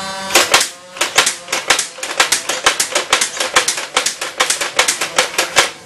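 Motorised toy machine gun firing: a rapid, slightly uneven run of sharp clicks, about seven a second, lasting about five seconds.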